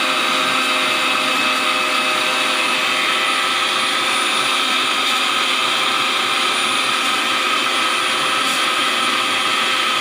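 Electric blender running steadily, blending dragon fruit with ice cubes, water and sugar into juice: a loud, even motor whine over the churning of the contents.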